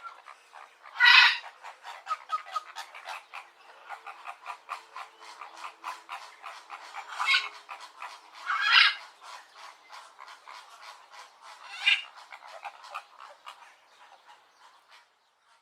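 A flock of flamingos calling: a dense, continuous chatter of short calls several times a second, with a few louder calls standing out. It fades away near the end.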